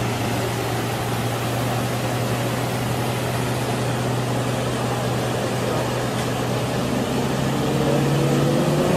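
Semi-truck's diesel engine running with a steady low drone as the truck pushes through fast-flowing floodwater, over a constant rush of water. A fainter rising tone joins near the end.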